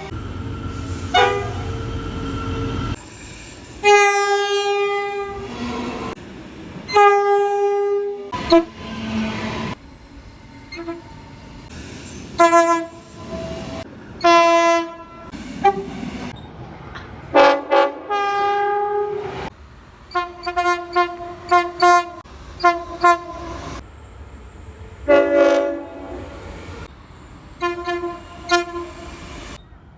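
Queensland Rail train horns sounding again and again, a mix of longer blasts and quick short toots, with a run of short toots past the middle. Low train rumble and rail noise fill the gaps between them.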